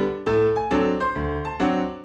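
Background music: a piano playing a melody, a new note or chord struck about every half second, each ringing and fading.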